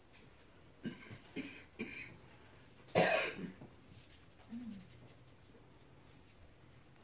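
A person coughing once, loudly, about three seconds in, after a few short, softer throat sounds.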